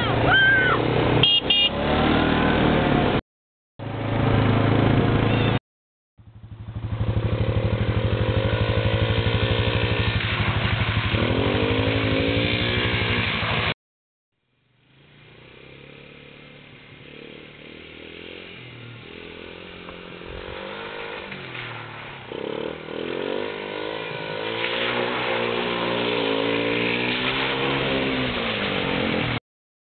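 Quad ATV engine running and revving up and down several times. The sound cuts out completely a few times, comes back quieter after the longest gap, and builds up again.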